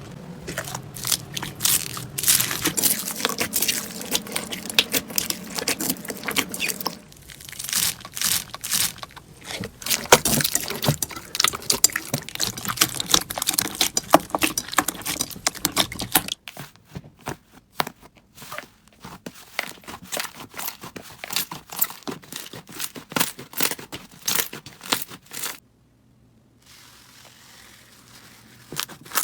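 Slime being squeezed, poked and stretched by hand, giving dense crackling, clicking and crunching sounds. The texture changes abruptly several times as one slime clip cuts to the next, with a short near-silent gap about three-quarters of the way through.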